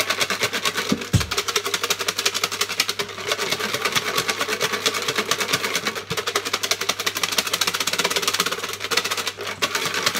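Small paper draw tickets rattling inside a clear plastic box shaken fast by hand, a rapid continuous clatter of mixing the entries for a draw.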